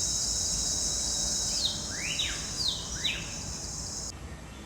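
Rainforest ambience: a steady, high-pitched insect drone, with a bird giving four or five quick sweeping whistles, some rising and some falling, in the middle. The insect drone cuts off suddenly about four seconds in.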